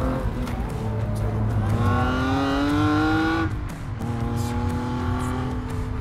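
Jaguar-sourced 3-litre V6 engine in a Mk1 Mazda MX-5 driven hard on track: the engine note climbs steadily in pitch for about a second and a half, falls away sharply just past halfway, then holds at a steady pitch.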